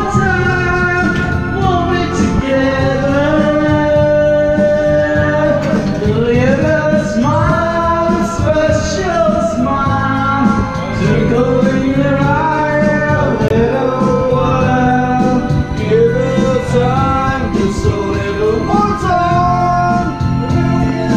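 A man singing karaoke through a microphone over a backing track, the voice holding long, sliding notes.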